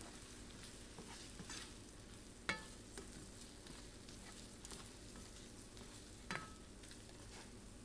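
Shrimp frying in butter and garlic in a pan, a steady sizzle as they are stirred, with a utensil knocking against the pan twice, about two and a half seconds in and again near six seconds.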